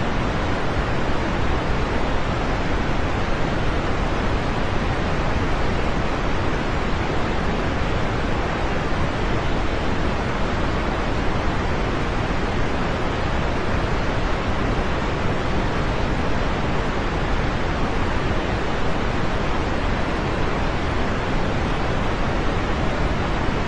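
Steady heavy rain: a dense, even hiss of falling rain that holds at one level, with no separate drops or other events standing out.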